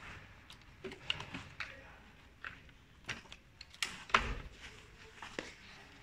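Irregular clicks and knocks of hands handling a children's trike's front wheel and pedal cranks, with the loudest knock a little after four seconds in.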